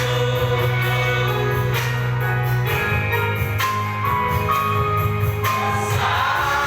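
Live church worship music, mostly instrumental, with a steady bass line and percussion that keeps the beat. In the second half a melody climbs in held, stepwise notes.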